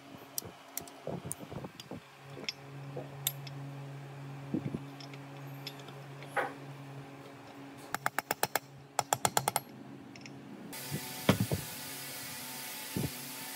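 Workshop hand work on small metal parts: scattered light clicks and taps over a steady low hum, two quick runs of rapid, even clicking around eight and nine seconds in, then a steady hiss starts near eleven seconds.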